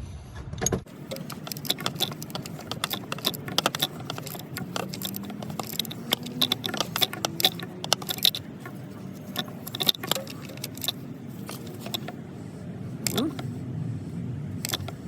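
Ratchet wrench clicking in quick, uneven runs as the boost solenoid's mounting bolts are tightened down.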